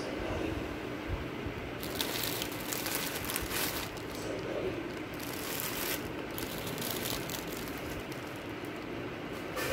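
Crinkling, crackly handling noise in two spells, about two to four seconds in and again around five to six seconds in, over a steady low hum.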